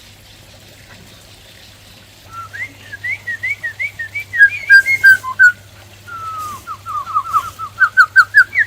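Black-throated laughingthrush singing. After about two seconds of quiet, it gives a string of short clear whistled notes, then a slurred falling whistle and a quick run of short notes climbing in pitch near the end. A faint low hum sits underneath.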